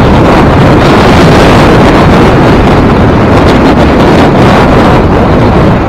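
Strong wind buffeting the microphone, a loud steady rumble, with lake waves washing on the shore ice beneath it.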